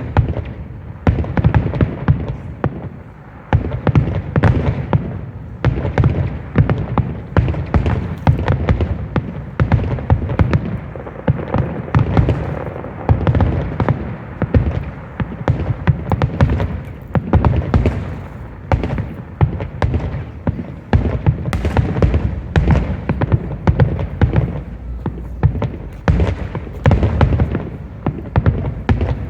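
Fireworks finale: a continuous barrage of aerial shell bursts, several loud booms a second overlapping without a break.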